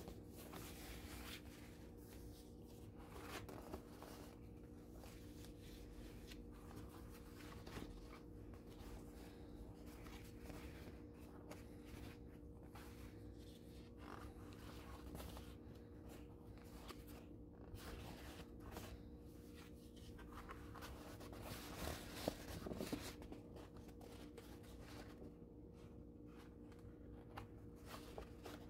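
Sheets of Japanese kneaded paper (momigami) being handled and lifted, giving faint, soft crinkling and rustling, with a few louder crackles about two-thirds of the way through. A steady low hum runs underneath.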